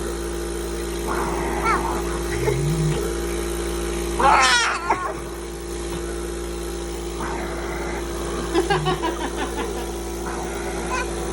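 A young child's high-pitched squeals and cries during a cough assist treatment, over the steady hum of the cough assist machine. The loudest is a rising-and-falling squeal about four seconds in, followed by a quick run of short sounds around eight and a half seconds in.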